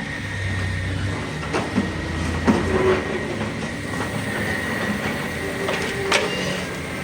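Hydraulic excavator working: a steady engine drone under a thin high whine, with several sharp clanks, the loudest about two and a half and six seconds in.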